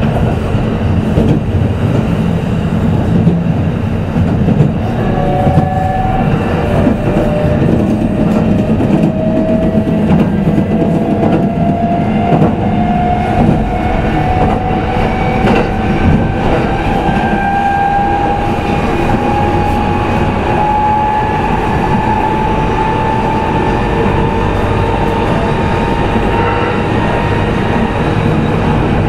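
Kintetsu 22000-series electric train running, heard from inside the motor car: steady wheel-and-rail rumble, with a few sharp clicks near the start. From about five seconds in, the traction motor whine climbs slowly in pitch as the train gathers speed.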